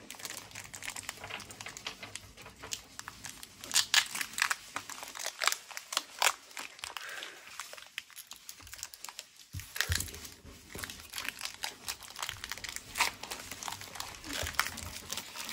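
Crinkling of a Pokémon booster pack's foil wrapper being torn open and handled, with the cards clicking and sliding as they are flicked through. The sound comes as many irregular sharp crackles and clicks, thinning out for a few seconds in the middle.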